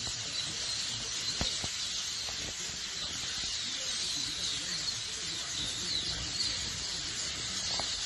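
A huge flock of starlings calling all at once from trees, a dense unbroken chorus of high, squeaky chatter.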